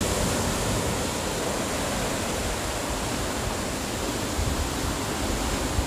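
Rough surf breaking and washing up the beach: a steady rush of noise, with a low uneven rumble of wind on the microphone.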